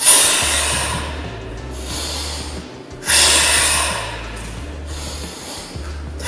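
A man breathing hard through his mouth in time with barbell bench press reps: a forceful exhale at the start, again about three seconds in and at the end, each as the bar is pressed up, with softer inhales in between as it is lowered.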